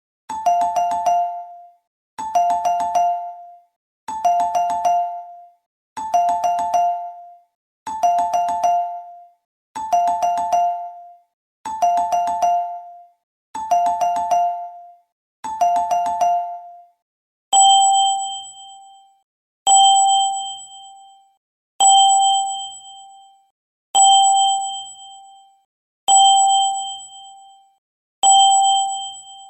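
Electronic chime sound effects standing in for train driver's-cab alert chimes. A two-note ding-dong, high then low, repeats about every two seconds. About seventeen seconds in it changes to a single brighter ding, also repeating every two seconds.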